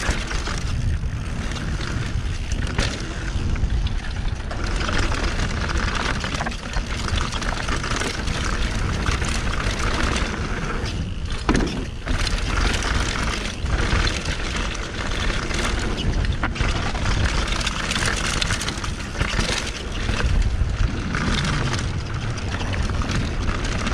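Mountain bike riding fast down a dry dirt downhill trail: steady rush of wind on the action-camera microphone and tyre noise on dirt, with frequent knocks and rattles from the bike over bumps and landings.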